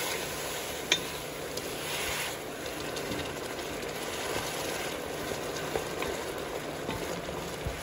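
Beef broth sizzling and bubbling over onions and garlic in an enamelled Dutch oven, stirred with a wooden spoon, with a single knock of the spoon against the pot about a second in.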